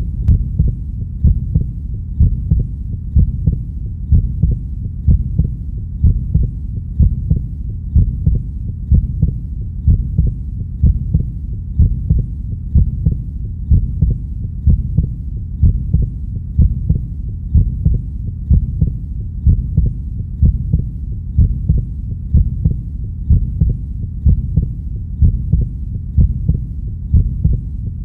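Heartbeat sound: a steady slow beat of low thumps, about one a second, over a constant low rumble.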